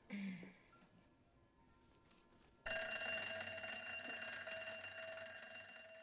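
A bright bell-like chime, rich in high overtones, strikes suddenly a little under three seconds in and rings on, slowly fading. Before it there is only a brief soft sound at the very start, then a faint hush.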